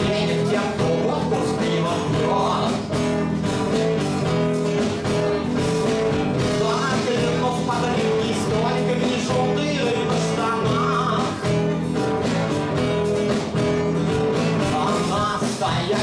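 Acoustic guitar strummed in a steady rhythm, with a man's voice singing now and then over it.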